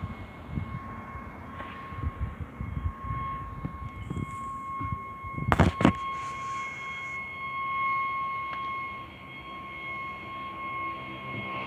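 A loud, steady ringing tone, sounding like a horn, holding one unchanging pitch from an unidentified source outside. A sharp knock comes about halfway through.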